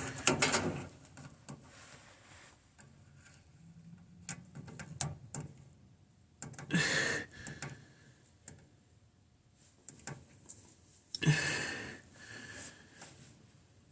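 Quiet handling noises and scattered clicks from hands working the buttons of a Goodman furnace's control board, with short rustling bursts about 7 and 11 seconds in.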